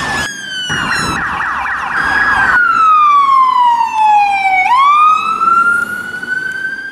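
Emergency vehicle electronic sirens. First comes a fast yelp, repeating several times a second, for about two seconds. Then a slow wail falls steadily in pitch, jumps back up about four and a half seconds in, and climbs again before cutting off at the end.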